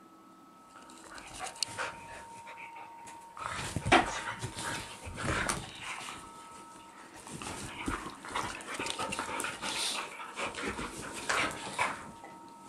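Two dogs play-fighting on a sofa: breathing and scuffling in irregular bursts, with one sharp knock about four seconds in.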